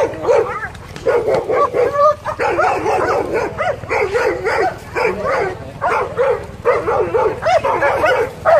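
Police dog barking rapidly and continuously, about three barks a second, starting about a second in.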